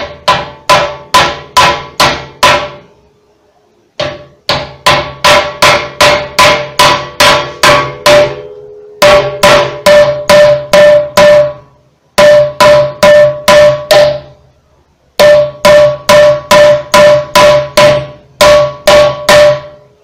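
Claw hammer blows on a wooden block set on a Koblenz washing machine's steel shaft, driving the shaft down through its bearing into the tub base. Quick blows at about four a second come in six runs with short pauses between, and each blow leaves a short metallic ring.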